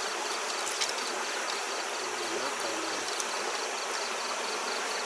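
Night insects calling steadily over a continuous hiss, one of them pulsing high and even, about three times a second.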